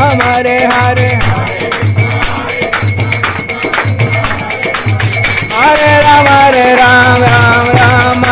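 Devotional kirtan music: a drawn-out melody line over a drum beat about once a second and steady jingling of small hand cymbals. The melody rises to a higher note a little after halfway.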